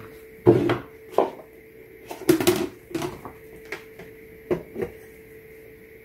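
Plastic dispenser control-board panel and a screwdriver knocking and clicking as the board is handled and worked loose from a refrigerator's dispenser housing. The knocks come in a string of about eight, the loudest cluster about two and a half seconds in, over a faint steady hum.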